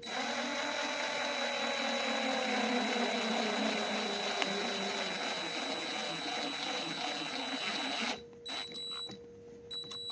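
Electric drill driving a screw into a chainsaw crankshaft seal to pull it out: the motor runs for about eight seconds, its whine sagging slowly as the screw takes load, then stops and gives two short blips of the trigger.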